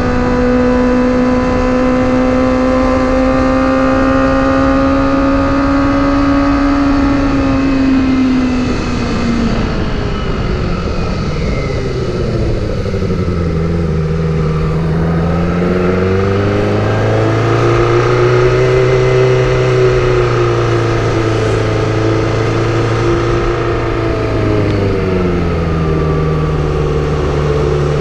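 Kawasaki Ninja ZX25R's 250 cc inline-four engine on the move through an aftermarket exhaust with its dB killer fitted. It holds steady high revs for the first several seconds, then drops in pitch about eight to twelve seconds in, and rises and falls again as the throttle is opened and closed.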